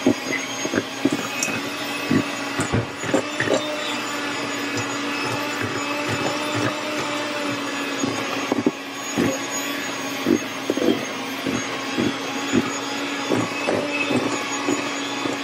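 Electric hand mixer running steadily, its beaters churning thick cookie dough in a stainless steel bowl, with frequent sharp clicks and knocks as the beaters strike the bowl.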